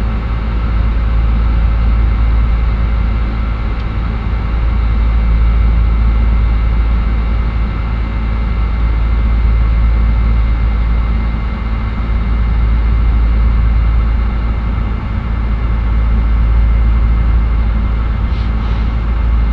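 Airbus A310 in its climb after takeoff, heard from inside the aircraft: a steady, loud, deep rumble of engines and airflow with a few steady tones above it.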